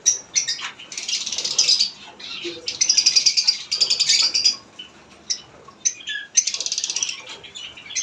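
Caged lovebirds chattering in several bursts of rapid, shrill chirping.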